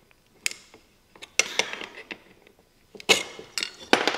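Hand tools working bolts out of an old circular saw's metal motor housing: a scattering of sharp metal clicks and clinks with creaking, scraping handling noise in between.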